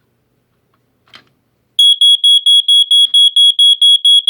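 Family Gard smoke detector being tested. A faint click comes about a second in, then the alarm sounds from just under two seconds in: a loud, high-pitched beep pulsing rapidly and evenly, about five times a second.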